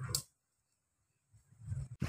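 Outdoor noise with a short high swish cuts off about a quarter second in, followed by dead silence. A low rumble fades in near the end.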